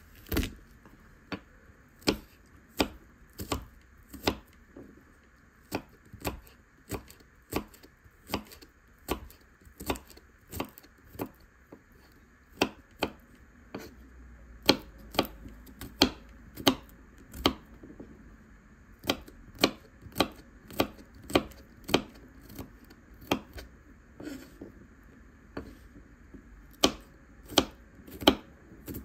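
Kitchen knife chopping garlic cloves on a bamboo cutting board: sharp knocks of the blade striking the board, about one to two a second, with a couple of short pauses.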